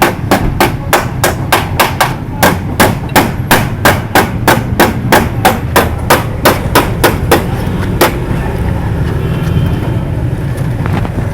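Hammer beating a sheet-metal patch piece on a car's body, sharp blows about three a second, stopping about seven seconds in with one last blow shortly after. A steady low rumble runs underneath.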